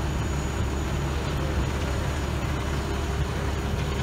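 Fire engine's engine running steadily to drive its water pump: a constant low drone with an even hiss over it.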